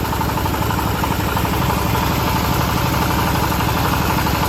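The engine of a home-assembled bandsaw mill running steadily.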